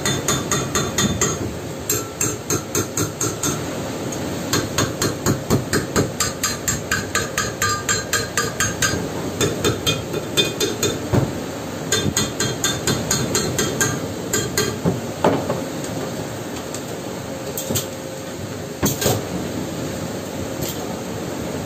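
Chipping hammer tapping slag off a fresh weld on a small steel part. The strikes come in runs of quick ringing metal taps, about four to five a second, with short pauses between runs and only a few single taps in the last part.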